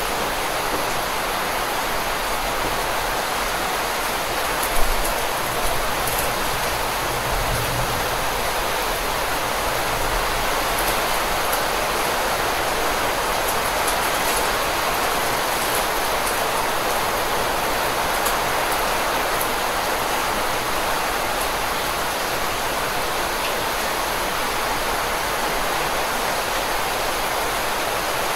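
Steady rainfall, an even hiss throughout, with one brief louder thump about five seconds in.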